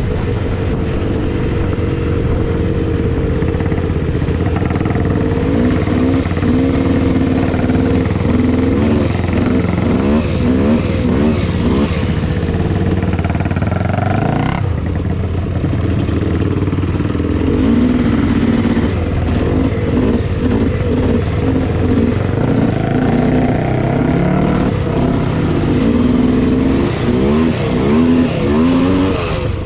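Polaris Scrambler 400's single-cylinder two-stroke engine being ridden hard, its pitch rising and falling over and over as the throttle is opened and closed, with a sharp clunk about halfway through.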